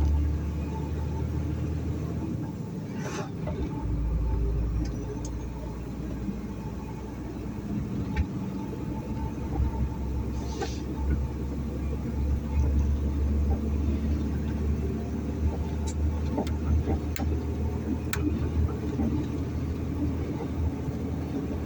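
Steady low rumble of a truck on the move, with a few scattered clicks and two brief hisses.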